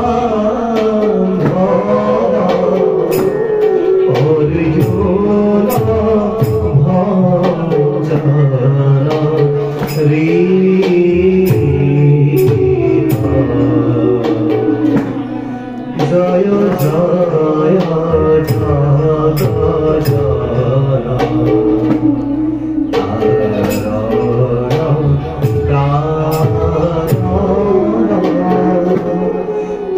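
Borgeet, an Assamese devotional song: a man sings a slow, gliding melody to a bamboo flute and a barrel drum, with steady percussive strokes. About halfway through there is a brief drop in the music.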